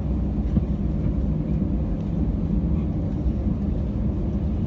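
Steady low rumble of an Airbus A321's cabin, the aircraft's air systems and engines droning evenly as it waits to depart.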